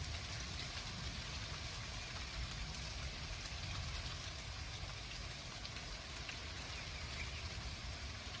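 Rain from an arriving thunderstorm falling steadily as an even hiss, over a steady low rumble.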